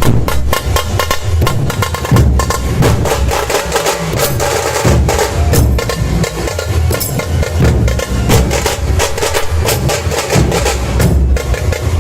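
Puneri dhol-tasha ensemble playing loudly and without a break: deep dhol beats under a rapid rattle of sharp tasha strokes.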